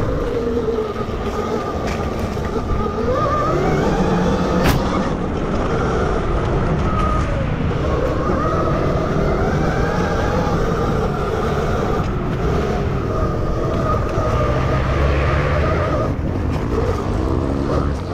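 Whine of an electric enduro bike's MG160A 12 kW hub-less drive motor, its pitch rising and falling with the throttle, over a steady low rumble. A sharp click about four and a half seconds in.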